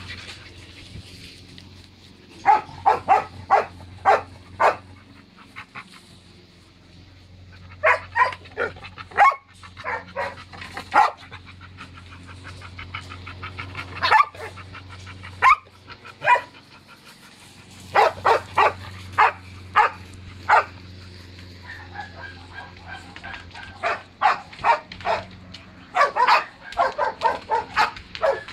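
Several kennelled dogs barking in repeated bouts of quick barks, with pauses of a few seconds between bouts.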